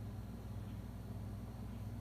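Steady low hum with a faint hiss under it, unchanging: room tone.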